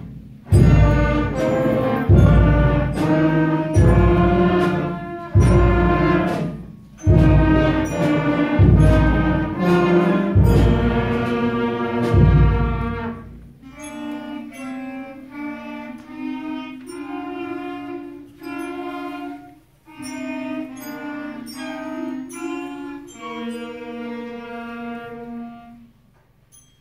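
A children's string and brass ensemble playing under a conductor. For about the first half it plays loud, separate chords with a heavy low end, about one every second and a half; then it moves to a quieter passage of held chords that stops just before the end.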